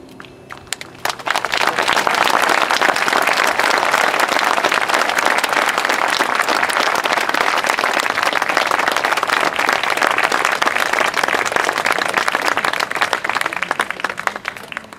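Audience applauding: a few scattered claps swell within a couple of seconds into dense, steady clapping, which thins out near the end.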